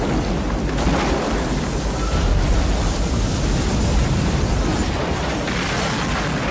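Film sound effects of a giant tsunami wave striking a city: a loud, continuous deep rumble of crashing, rushing water and debris.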